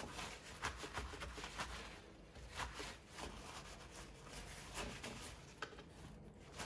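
Paper towel rustling and crinkling in irregular short strokes as hands pat and wipe raw marinated chicken pieces dry.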